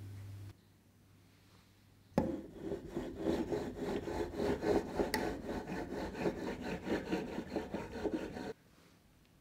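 Serrated cake-leveler blade sawing back and forth through a chocolate sponge cake to slice it into layers, quick rasping strokes several times a second. It starts about two seconds in and stops suddenly near the end.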